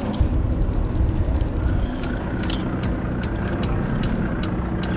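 Sportfishing boat's engine running steadily with a low drone, with wind buffeting the microphone about the first second.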